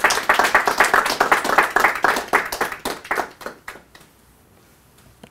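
Audience applauding, a dense run of handclaps that thins out and dies away about four seconds in.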